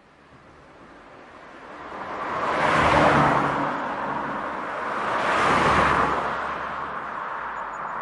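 Cars driving past on a road: tyre and engine noise grows from faint to a peak about three seconds in, dips, swells again with a second pass at about five and a half seconds, then fades away.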